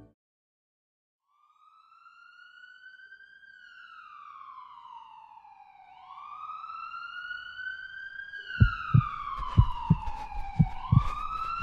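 Police-style siren wailing in slow rising and falling sweeps, about one cycle every five seconds. It fades in after a moment of silence and grows louder about halfway through. Over it, from about two-thirds of the way in, come heavy thumps about three times a second.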